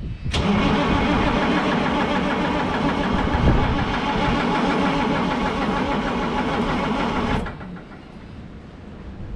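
White GMC cabover truck's starter cranking the engine in a start attempt, no ether used. The cranking kicks in suddenly, runs evenly for about seven seconds without a change in pace, then cuts off abruptly.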